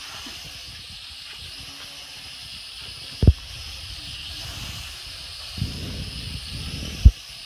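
Small quadcopter drones' propellers whirring as a steady high hiss, with a sharp knock about three seconds in and another near the end.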